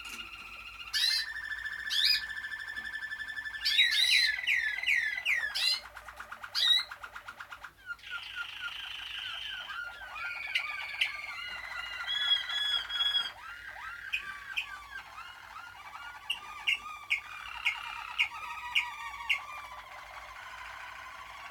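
Malinois (Waterslager) song canaries singing without a break: long held rolling notes alternate with fast runs of repeated gliding notes and short, sharp high calls.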